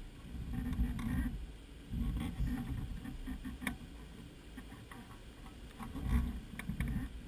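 Wind buffeting the microphone in uneven low gusts, with a few light clicks.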